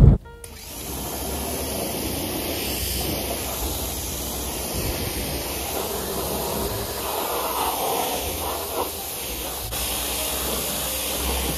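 Pressure washer spraying water onto a car's body and wheel: a steady hiss of the water jet with a low hum beneath.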